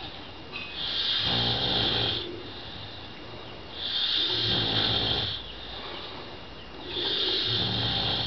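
A person snoring in sleep: three long, loud snores about three seconds apart, with quieter breathing between them.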